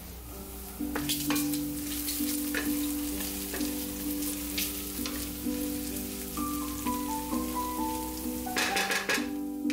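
Bacon and chopped ramps sizzling in a stainless steel skillet, with a spoon scraping and tapping the pan as they are stirred, and a louder scrape just before the end. Soft background music with a slow melody plays over it.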